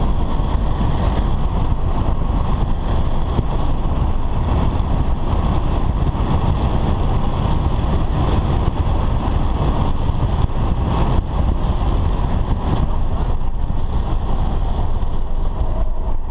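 Steady engine, tyre and wind noise heard from inside the cabin of a BMW F10 5 Series driven at track speed.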